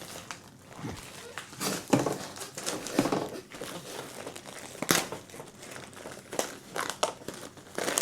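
A roll of new window-screen mesh being handled and unrolled: irregular crinkling and rustling with a few sharp clicks.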